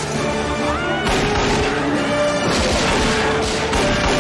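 Film action soundtrack: orchestral score playing over gunshots from revolvers and crashing impacts.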